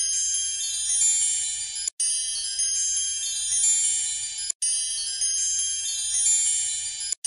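Looped twinkling chime music of many high shimmering tones, cutting out for an instant and restarting about every two and a half seconds.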